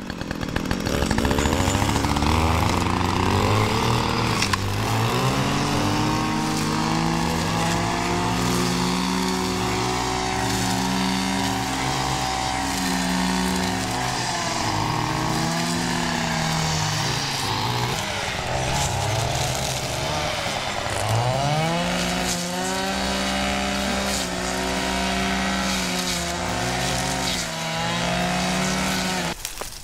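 Gas-powered brush cutters running while cutting brush, their engine note rising and falling again and again as the throttle is opened and eased off, with a short dip a little past the middle.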